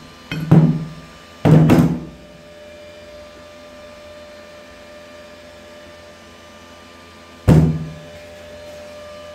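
Steel chipping hammer striking a weld bead on steel plate: a few hard metallic knocks close together in the first two seconds, then one more near the end, each ringing briefly.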